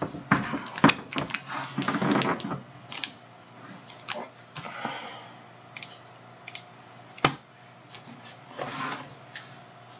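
Scattered clicks and taps with some rustling, like keys being typed or a phone being handled at a desk. They are busiest over the first three seconds, then sparser, with one sharp click about seven seconds in.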